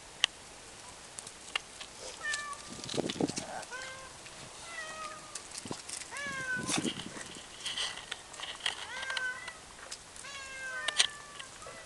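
Puppies whining and yelping: many short, high-pitched cries in quick runs, with a couple of low muffled bumps.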